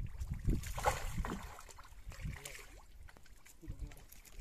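Muddy water sloshing and splashing inside a bamboo plunge-basket fish trap as hands grope around in it for fish, in irregular bursts that are busier in the first second and a half and quieter after.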